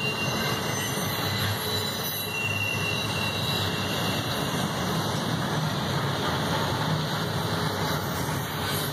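Double-stack intermodal freight cars rolling past: a steady rumble and rush of steel wheels on rail. A thin, high wheel squeal from the curving track fades out within the first couple of seconds.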